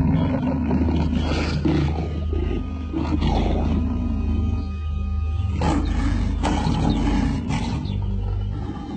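A lion roaring in repeated rough outbursts, over background music with a deep steady drone.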